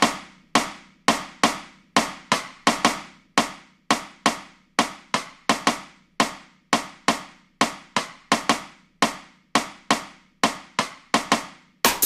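A single percussion sound from the MT-PowerDrumKit drum plugin, sharp dry hits looping in a syncopated zouk pattern of about two a second with no other instruments. Right at the end the full beat with a deep kick drum comes in.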